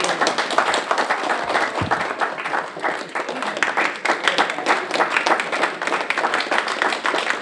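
Audience applause, many hands clapping.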